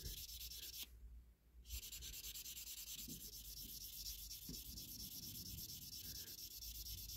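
A fine sanding stick rubbed back and forth over a clear plastic toy-car window unit, making a faint, rapid scratchy hiss. The rubbing is smoothing out scratches and cloudiness to make the glazing clearer. It stops for under a second about a second in, then carries on.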